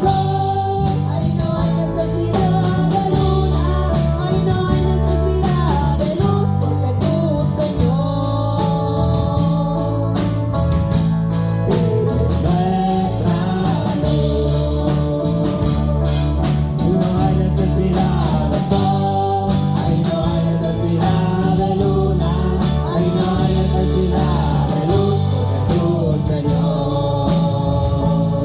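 A live worship band playing Christian music with singing, a steady bass line and a regular drum beat.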